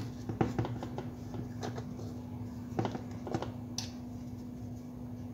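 Small sharp metal clicks and taps of a screwdriver working the screws on the side cover of an Escualo spinning reel, coming in a few quick clusters over a steady low hum.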